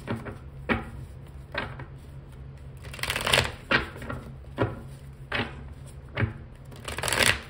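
A deck of tarot cards being shuffled by hand: a sharp snap of the cards about once a second, with two longer rustling runs of shuffling about three seconds in and near the end.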